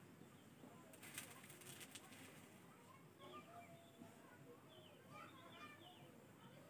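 Near silence, with faint bird chirps in the background and a short scratchy noise about a second in.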